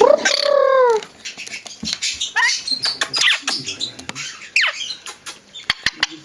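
Pet lorikeet calling: a loud drawn-out call that falls in pitch over the first second, then quieter chattering squeaks, a falling whistle, and a few sharp clicks near the end.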